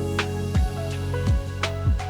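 Background music with a steady beat: sustained tones over a kick drum about every two-thirds of a second.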